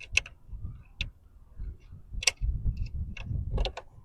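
Scattered sharp clicks and taps of a small screw and the plastic side-mirror turn signal housing being handled as the screw is set into place, with the loudest click a little over two seconds in and a quick run of clicks near the end.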